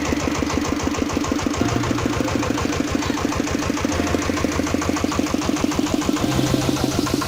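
A small engine running steadily at an even speed, with a fast, regular chugging.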